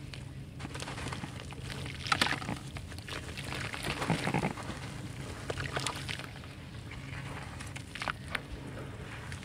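Dry red dirt cake crunching and crumbling between the hands, grit and chunks pattering and splashing into water in a metal basin, loudest about two seconds in and again around four seconds. Near the end a hand squishes the wet mud under the water.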